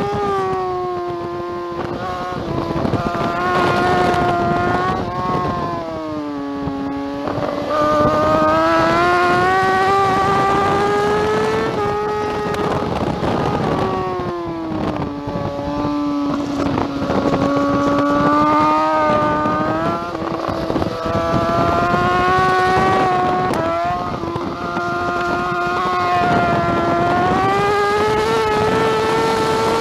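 2009 BMW S1000RR's inline-four engine at race pace on track, pulling up through the revs on the straights and falling in quick steps on downshifts into corners, first in the opening seconds and again around the middle.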